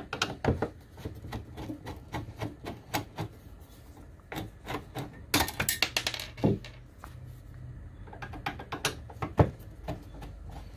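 Irregular clicking and light scraping of a Phillips screwdriver backing screws out of the sheet-metal lid of a UPS battery tray, with a denser patch of scraping about halfway through and one sharp click near the end.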